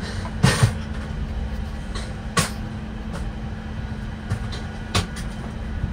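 Steady hum of air-conditioning and equipment fans inside an airliner cockpit, with a constant low tone. Three short sharp clicks sound over it, at about half a second, two and a half seconds and five seconds in.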